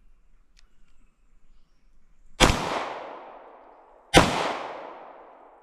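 Two 9mm shots from a SIG Legion pistol, a little under two seconds apart, each a sharp crack followed by an echo that fades over a second or so.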